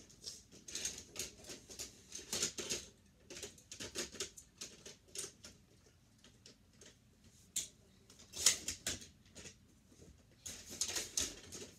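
Die-cast Hot Wheels cars and a plastic toy parking garage being handled: irregular small plastic clicks, taps and scrapes, with a quieter stretch in the middle and a busier burst near the end.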